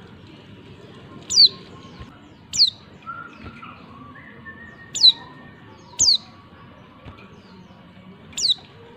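A female white-eye (pleci) calling: five short, sharp, high notes, each falling quickly in pitch, spaced a second or two apart. This is the female's call used to provoke male white-eyes into answering and singing.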